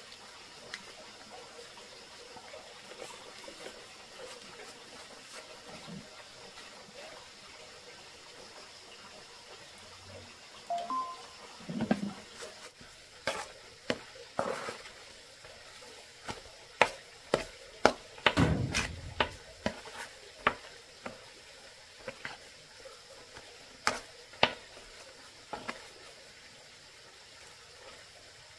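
Kitchen food-preparation sounds: a quiet stretch, then from about eleven seconds in a run of scattered knocks and clinks of utensils and dishes being handled, thinning out near the end.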